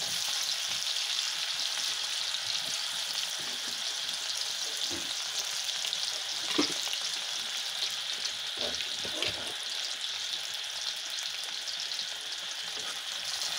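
Chopped red onions sizzling in hot mustard oil in a blackened kadai: a steady frying hiss with a few small pops.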